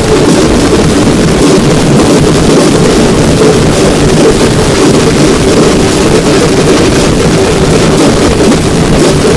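A band of large double-headed barrel drums (dhols) beaten with sticks, all playing loudly together. The beats blur into a dense, unbroken din at a steady level.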